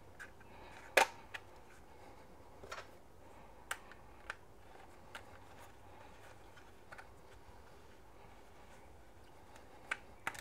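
Scattered small clicks and taps of hand-handled hardware as a GoPro action camera's mounting fingers are fitted into a drone's camera mount and the bolt is pushed in. The sharpest click comes about a second in, with a few lighter ones after it.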